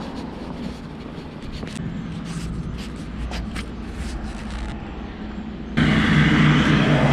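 Car running on the road: a steady low rumble of engine and road noise. Nearly six seconds in it cuts suddenly to a louder, steady engine hum.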